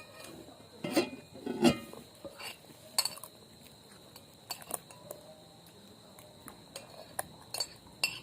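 Cutlery clinking and scraping against plates while eating, in a series of irregular sharp clinks, the loudest two close together about a second in.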